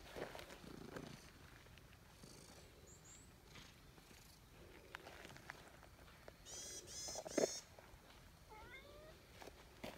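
A cat meows once, a short call about two-thirds of the way in, the loudest sound here; a few faint short rising calls follow soon after.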